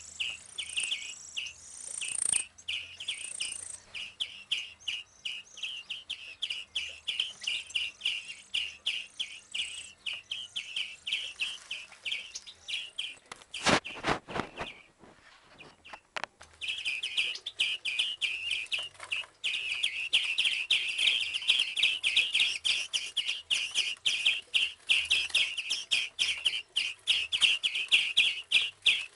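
Hand-reared birds chirping in a fast, continuous run of repeated high chirps. About halfway through there is a short knock, the chirping stops briefly, then it resumes louder.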